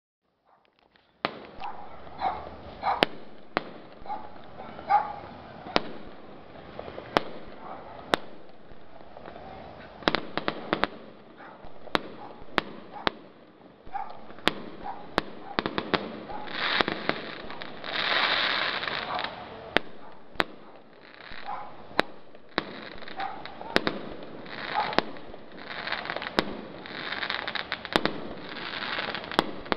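Aerial fireworks display: a run of sharp bangs from shells bursting, about one a second, starting about a second in. Longer spells of crackling come in the middle and near the end.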